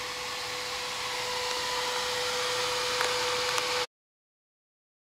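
Steady rushing hiss with a faint steady hum, like a fan or blower running, with a few light clicks, cutting off suddenly near the end.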